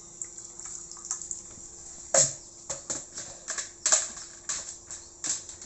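Irregular sharp clicks and clatters of kitchen utensils, about a dozen, the loudest about two seconds and four seconds in, over a steady low hum.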